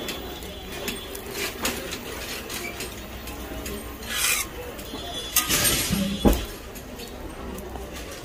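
Egg paratha sizzling in oil on a large flat iron griddle, with a metal spatula scraping and clinking on the iron several times, busiest in the second half and ending in one sharp knock about six seconds in.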